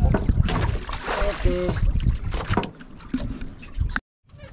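Water splashing and lapping around a small outrigger fishing boat, with knocks and clatter of the line and gear being handled and a low rumble, loudest in the first two seconds. The sound drops out briefly near the end.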